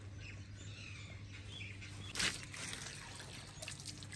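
Water poured from a mug over a shampooed dog to rinse it: a short splash about halfway through, then trickling and dripping. Faint bird chirps early on.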